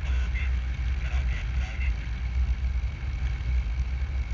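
Wind buffeting the microphone of a glider-mounted camera during a paragliding flight, a steady low rumble with a rough flutter. A thin, steady high tone is heard over it from about halfway through.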